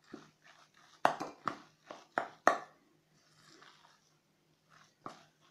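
A hand mixing a wet cabbage and mushroom cutlet mixture with flour in a stainless steel bowl: a run of irregular short squelching smacks, several close together, then a quieter stretch and two more near the end.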